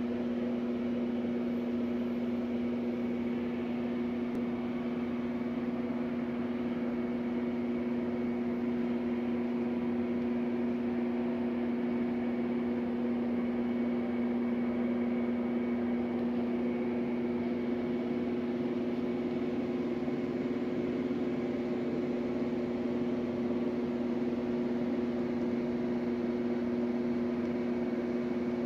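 A steady machine hum, one low buzzing note with a second tone above it over a light hiss, unchanging throughout.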